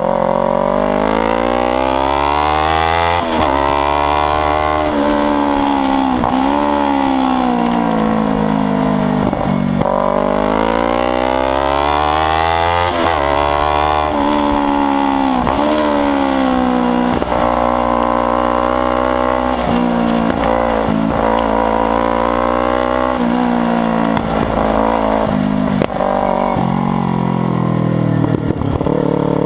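Kawasaki Ninja 300's parallel-twin engine ridden hard with a loud exhaust. The pitch climbs through the revs, breaks off briefly at each gear change, and falls away again, over and over.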